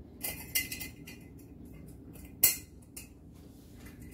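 Glass storage canisters being closed and handled on a granite countertop: a few short clinks and knocks of lid and glass, one much louder clink a little past halfway.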